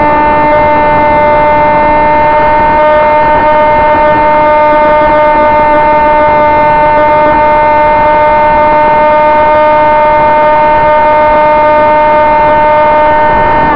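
Sonic Models AR Wing's electric motor and propeller whining at one steady pitch in flight, over a rush of air noise, recorded from the onboard camera.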